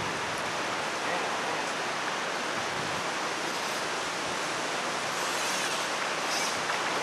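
Steady rushing of a shallow river riffle running over a gravel bed.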